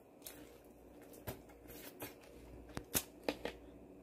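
Faint chewing of a mouthful of guobaorou, battered fried pork in sweet-and-sour sauce, with scattered soft crunches and mouth clicks and a few sharper clicks near the end.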